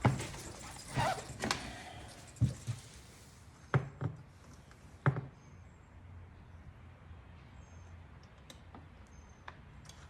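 A handful of sharp knocks and clicks as small parts are handled and fitted, about five in the first five seconds, then only a few faint ticks.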